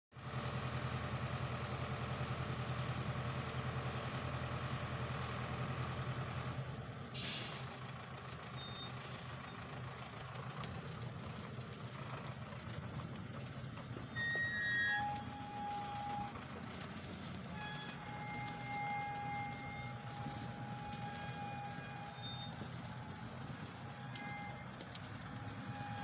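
Tractor engine running steadily as it tows a loaded, tracked forestry log trailer, the engine note dropping after about six seconds. A sharp hiss comes about seven seconds in and a weaker one near nine, and from about fourteen seconds short, high squeaks come and go over the engine.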